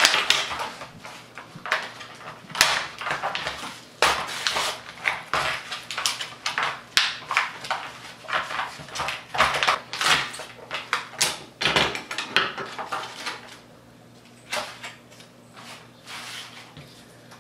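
Plastic blister packaging and its cardboard backing being pulled and torn open by hand, with dense irregular crinkling and crackling that thins out near the end.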